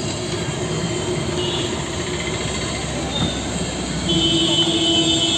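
Bara (lentil fritters) deep-frying in a large kadai of hot oil, a steady sizzle under street traffic noise. About four seconds in, a louder steady tone starts and holds.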